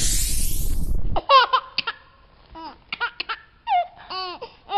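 A cartoon rocket-engine whoosh rises in pitch and cuts off suddenly about a second in. It is followed by a young child's giggling laughter in short, high-pitched peals with pauses between them.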